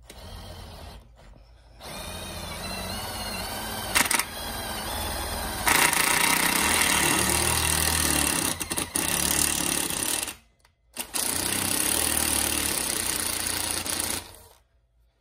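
Hilti SID 2-A cordless impact driver drilling a pilot hole into aluminum tubing, with a rattling hammering sound. It runs for several seconds and gets louder about four seconds in. It stops briefly near the ten-second mark, then drills again for a few more seconds.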